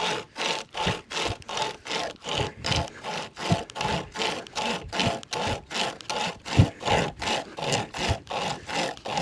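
Nordic Pocket Saw, a hand-pulled pocket chainsaw chain, cutting through a log of very hard wood: even back-and-forth rasping strokes, about three a second.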